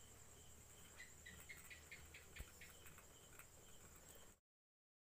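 Faint night insects, crickets: a steady high-pitched trill with a slower chirp repeating over it. About a second in comes a quick run of about eight short chirps. The sound cuts off suddenly near the end.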